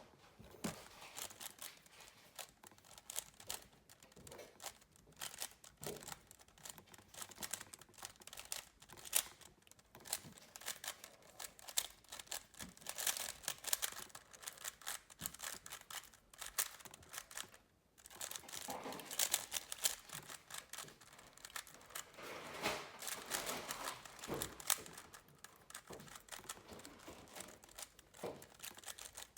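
A plastic 3x3 speed cube being turned rapidly, its layers clacking in a fast, continuous rattle of clicks, with a brief pause about two-thirds of the way through.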